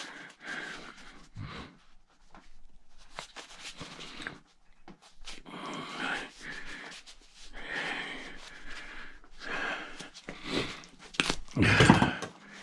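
Scrap copper being handled and sorted by hand: scattered clinks, rustles and scrapes of metal pieces, with one louder knock near the end.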